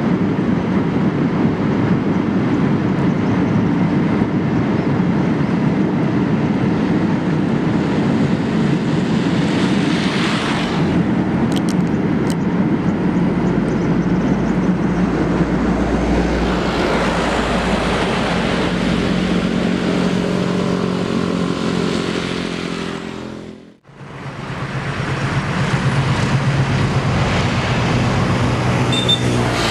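Steady rumble of a passing train with a diesel locomotive's engine drone. It drops out briefly about three-quarters of the way through, then resumes as a diesel locomotive hauls a passenger train across a steel truss bridge.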